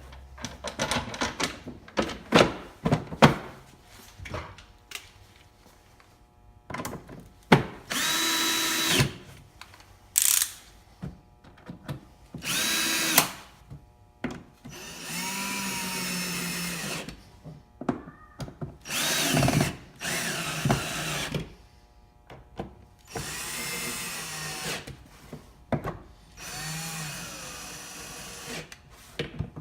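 Cordless drill with a T25 Torx bit running in about eight short bursts of a second or two, its motor whine rising and falling with the trigger, as it drives the screws of the BMW M3's plastic air box lid. Clicks and knocks of plastic parts being handled come in the first several seconds.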